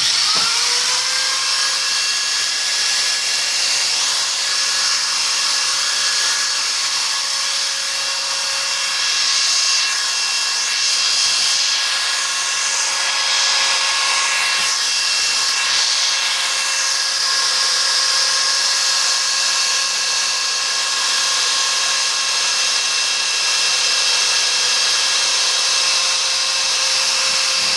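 Small electric drill with a 0.5 mm bit spinning up and then running steadily with a high whine, boring a hole through an eyeglass temple arm to take a replacement hinge screw.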